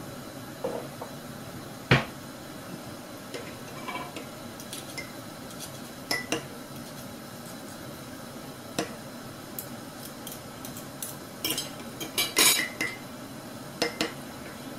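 A metal spoon clinking against a ceramic mug while stirring, in scattered sharp clinks with a busier run of them about three quarters of the way through. One louder knock comes about two seconds in.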